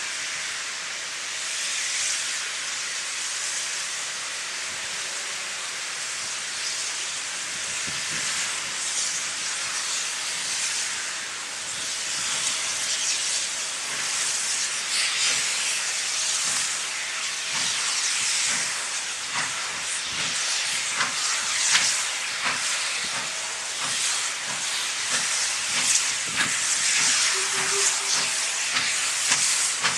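Norfolk & Western J-class 4-8-4 No. 611 steam locomotive working a passenger train. It gives a steady steam hiss, and its exhaust beats grow louder and more distinct as it approaches.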